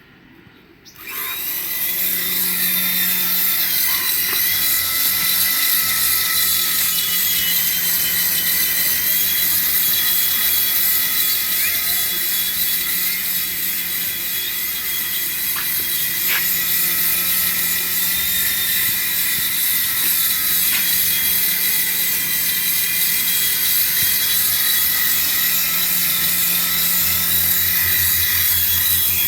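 Small electric motor of a remote-control toy running steadily with a high, slightly wavering whine, starting about a second in.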